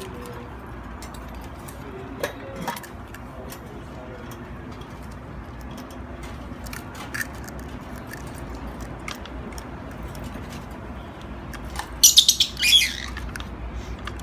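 Lovebird giving a quick burst of loud, shrill chirps about twelve seconds in, after a stretch with only scattered faint clicks.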